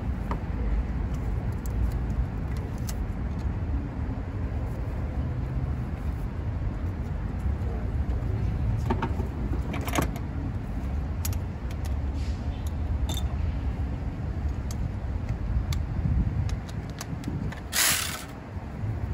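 Hand tools and engine parts clicking and tapping as parts are worked loose in a car's engine bay, over a steady low rumble, with a short hiss near the end.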